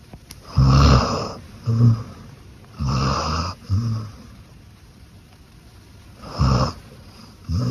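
Beagle snoring in her sleep: three snores, each a longer one followed by a short one, with quiet gaps between.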